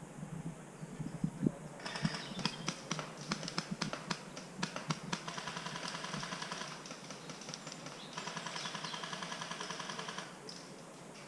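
Airsoft guns firing. Scattered single clicking shots start about two seconds in, followed by two long full-auto bursts of rapid, evenly spaced clicks; the last one stops shortly before the end.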